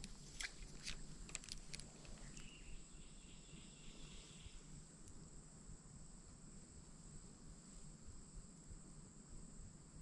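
Faint woodland background of insects buzzing steadily at a high pitch. A few soft clicks come in the first couple of seconds, and a second, lower buzz is heard from about two to four and a half seconds in.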